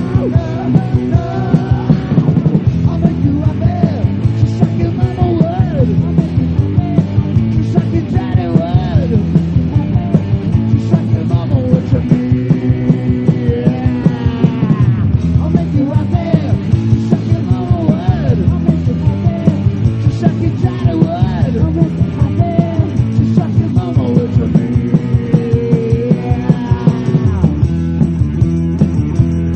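Hard rock band playing loud: distorted electric guitars, bass and a steady drum beat of about two hits a second, with a lead line whose notes bend and waver in pitch.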